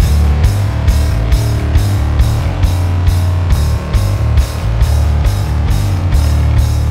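Sleaze rock band playing an instrumental passage: distorted electric guitars and bass over a drum kit, with cymbal hits about twice a second. The full band comes in sharply right at the start, after a lone wavering guitar line.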